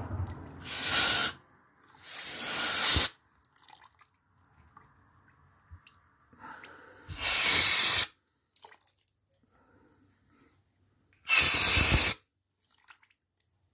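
Aerosol spray can hissing in four bursts of about a second each, spraying cleaner onto an outboard engine to wash out oily sludge.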